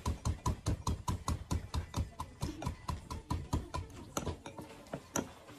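A metal muddler pounding lime in a glass: fast, even knocks of metal on glass, about six a second, each with a dull thud.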